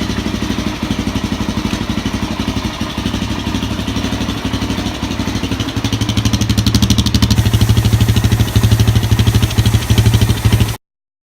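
Suzuki LT-Z400 quad's single-cylinder four-stroke engine idling in first gear with the wheel turning, an even pulsing beat. About six seconds in it runs louder and deeper, then cuts off suddenly near the end.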